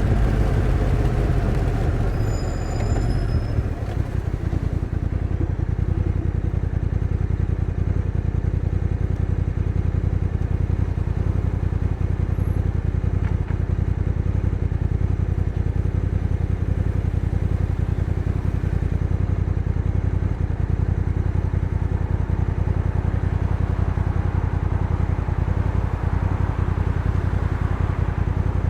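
Honda NT1100's 1,084cc parallel-twin engine slowing over the first few seconds, then idling steadily with an even low pulse.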